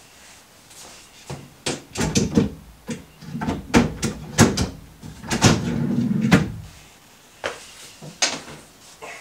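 Wooden drawers being fitted into a chest of drawers: a run of knocks and clatters as a drawer is handled and lined up, then a rumbling slide along its metal runners from about five to six and a half seconds in, followed by a few lighter knocks.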